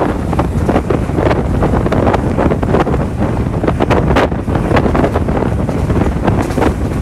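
Wind buffeting the microphone held out of a moving passenger train's window, in uneven gusts, over the low rumble of the train running along the track.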